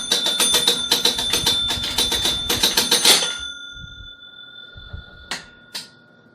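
1957 Gottlieb Ace High pinball machine's bell ringing in a rapid, continuous run of strikes, the machine caught in the scoring loop caused by its faulty scoring wheel; the ringing cuts off about three seconds in and fades. Two sharp clicks follow near the end.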